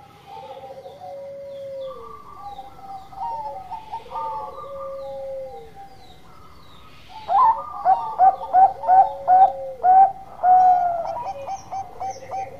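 Zebra dove (Bangkok-type perkutut) cooing: softer rolling, gliding coos, then about halfway through a louder run of short staccato coos, about three a second, ending in a longer drawn-out note.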